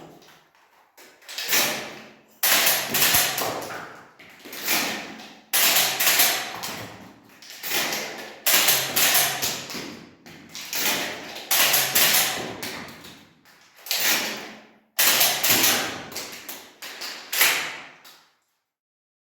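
Shotgun being handled and cycled in dry-fire practice: a run of sharp metallic clacks and sliding rattles, one every second or so, stopping shortly before the end.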